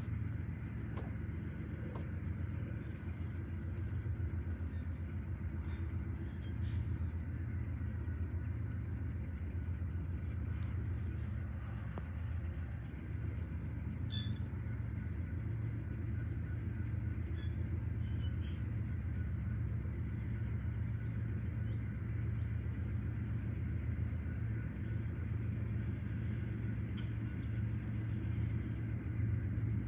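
Diesel locomotives approaching from a distance: a steady low engine rumble that grows slightly louder.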